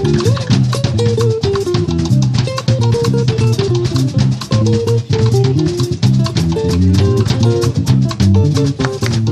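Two compact drum kits, one built into a suitcase, played together in a fast, busy jam, with dense strokes on drums and cymbals. A pitched bass line runs underneath.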